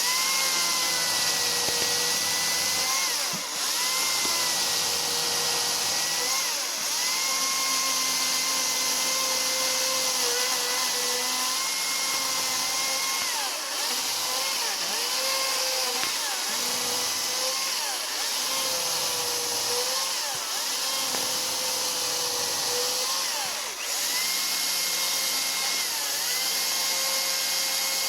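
Makita DUC353 twin-18V cordless chainsaw running continuously, its electric motor whine dipping in pitch and recovering about seven times over a steady hiss of the chain. The dips are the motor slowing under load or on the sensitive variable-speed trigger as it cuts wood.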